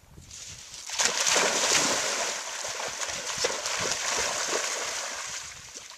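Two dogs leaping into shallow river water and splashing through it. The splashing starts suddenly about a second in, is loudest just after, and fades toward the end.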